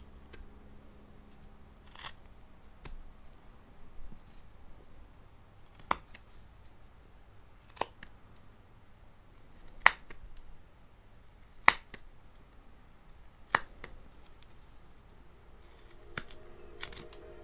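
Carving knife (kogatana) slicing into a block of paulownia wood: a series of sharp, short cuts, about one every two seconds, as chips are pared off the corners.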